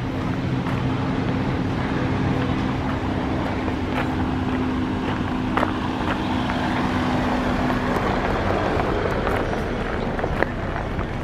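An engine running at a steady pitch, its hum fading out about eight seconds in, over open-air background noise.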